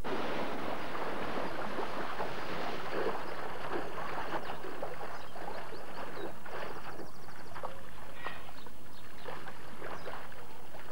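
Water splashing and sloshing as polar bears wade and move through a pool, with many short splashes over a steady watery wash.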